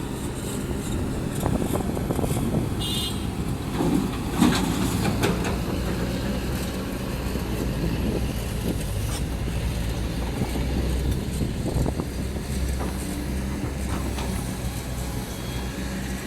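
Heavy diesel machinery running steadily with a low, even hum. Several sharp clanks and knocks cut through it, the loudest about four and a half seconds in.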